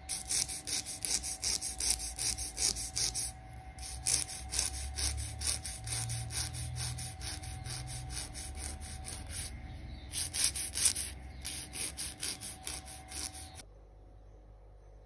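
A nail file rasping on a fingernail in quick, even back-and-forth strokes, about three to four a second, stopping abruptly near the end.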